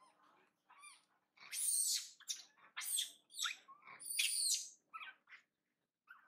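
Baby long-tailed macaque squealing: a rapid run of about ten short, shrill, high-pitched calls whose pitch sweeps up and down, loudest in the middle.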